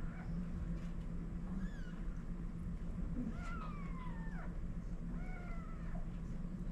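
Cat mewing: three thin, high-pitched calls that fall in pitch, the middle one the longest, over a steady low hum.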